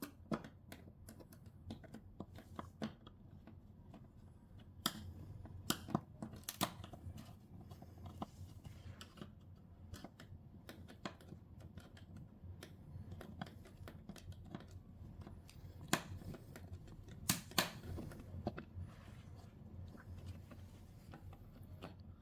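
Scattered small clicks and taps of hand tools and loose plastic and metal parts being handled while an old TV is taken apart, with a few sharper knocks about five to seven seconds in and again near sixteen to eighteen seconds.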